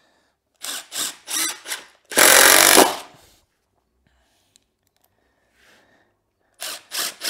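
Cordless drill driving short wood screws into pressure-treated timber. There are a few short trigger bursts, then a loud run of just under a second about two seconds in, and more short bursts near the end.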